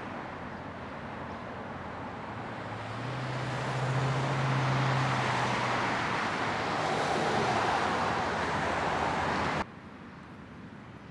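Road traffic passing: a steady rush of tyre and engine noise that swells as vehicles go by, with a low engine hum for a few seconds, then cuts off suddenly near the end.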